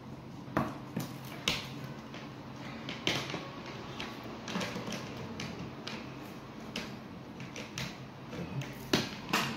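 Irregular plastic clicks and knocks as a Tefal steam iron's casing, top cover and handle are handled and pressed back together, with two sharp clicks near the end.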